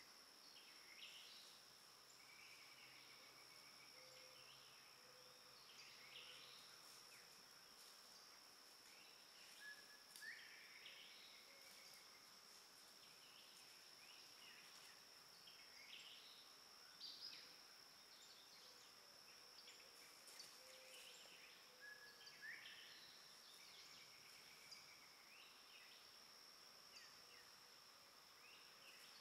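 Faint woodland ambience: a steady high-pitched insect drone with scattered short bird calls over it.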